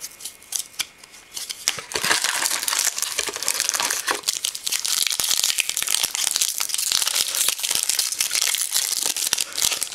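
A few light clicks, then from about two seconds in the loud, continuous crinkling of a foil Upper Deck MVP hockey card pack as it is pulled from the box, handled and torn open.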